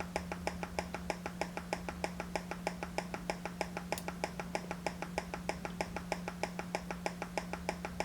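Yamaha mixer board's pulsating fault noise heard through a headphone: rapid, even ticking at about seven or eight a second over a steady low hum. This is the fault being traced to a bad transistor.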